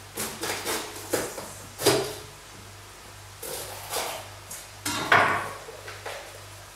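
Kitchen knife cutting a red bell pepper on a wooden cutting board: a few irregular knocks of the blade against the board, the loudest about five seconds in.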